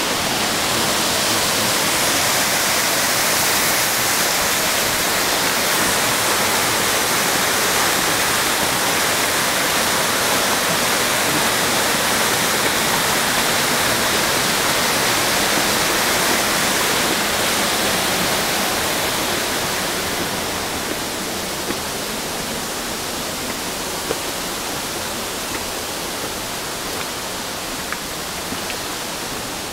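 Yoro Falls, a waterfall carrying a large volume of water, crashing into its plunge pool as a loud, steady rush. It gets a little quieter about two-thirds of the way through, and a few faint ticks come near the end.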